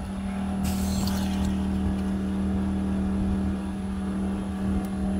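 Predator portable generator engine running steadily with a low hum. About a second in there is a brief hiss lasting under a second.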